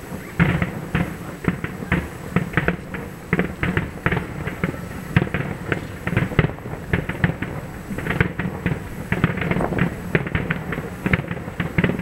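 Aerial fireworks shells bursting in a rapid, irregular barrage: a dense run of bangs and crackles, several a second.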